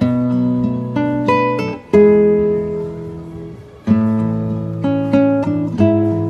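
Background music: acoustic guitar picking and strumming chords, with a new chord or phrase struck about every second or two.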